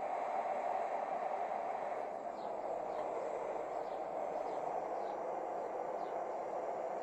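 Propane torch flames burning with a steady, even rushing hiss while heating a hardened-steel jackhammer chisel tip toward red heat for hardening.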